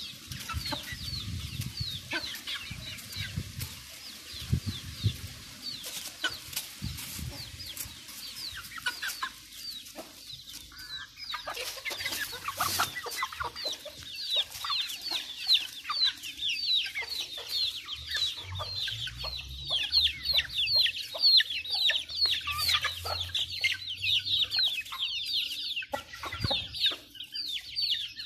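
A flock of young chickens peeping and clucking as they feed, a steady stream of short falling peeps that grows busier after about twelve seconds, with scattered taps of beaks pecking grain.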